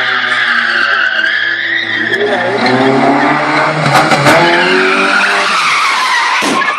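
A car's tyres squealing continuously as it slides in circles, with its engine held at high revs and rising about two seconds in. A few sharp knocks cut through around four seconds in and again near the end.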